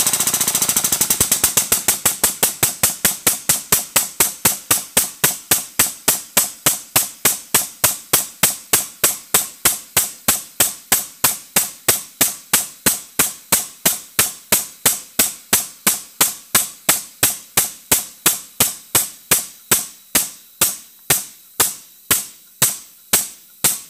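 Air-over-hydraulic pump of an exhaust pipe expander clicking rapidly as it drives the ram to expand a thin-wall exhaust pipe. The clicks come very fast at first and slow steadily, which the owner says happens as the tool meets its end.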